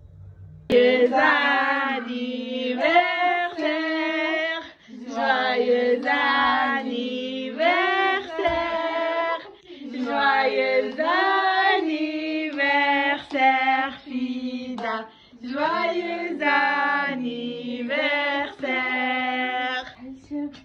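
A high voice singing a melody unaccompanied, in phrases a few seconds long with short breaks between them. It starts suddenly and sounds thin, with no bass.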